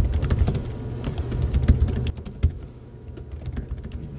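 Typing on a computer keyboard: a quick run of key clicks for about two seconds, then slower, sparser keystrokes.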